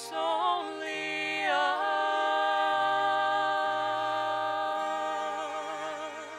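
A woman singing the closing phrase of a ballad: a short phrase that bends up and down, then a long held note with vibrato, over sustained accompaniment chords. The held note fades a little near the end.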